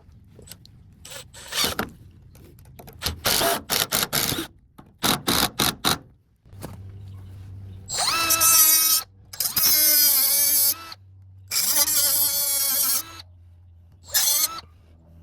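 Quick runs of sharp knocks, then a power drill driving fasteners into the shed boards in three runs of about a second each, its whine climbing in pitch as each run starts, with a short final burst near the end.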